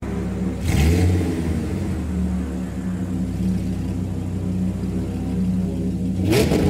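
An engine blipped about a second in, then running steadily, and revved again near the end.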